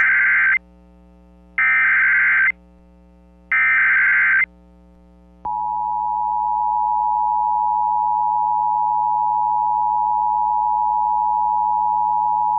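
Emergency Alert System opening tones: three bursts of SAME header data, about two seconds apart. About five and a half seconds in, the steady two-tone EAS attention signal starts and holds, heralding a National Weather Service flash flood warning.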